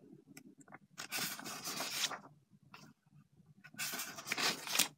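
Paper comic-book pages turned by hand: two rustling sweeps of paper, one about a second in and another near the end, with a few light ticks between.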